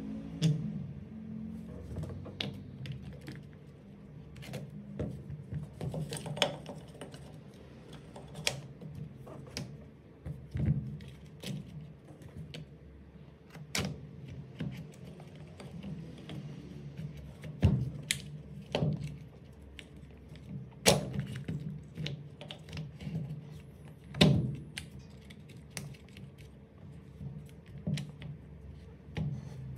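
Plastic housing and internal parts of a Makita DHR243 cordless rotary hammer being handled and fitted together: scattered clicks, taps and knocks, with a few louder knocks in the second half, over a faint steady low hum.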